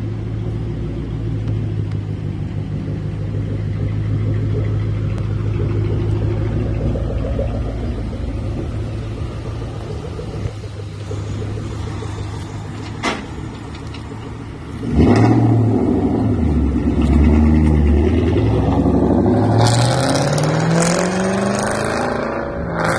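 1997 Ford Mustang SVT Cobra's 4.6-litre DOHC V8 through an X-pipe exhaust with no catalytic converters and no mufflers, rumbling at low speed. About 15 seconds in it is revved hard, and near the end it pulls away with the pitch climbing.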